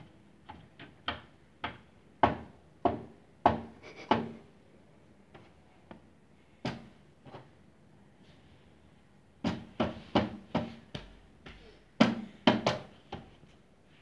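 Sharp percussive hits struck by a person's hand, one at a time, in three quick runs of about two a second with a few single hits between them.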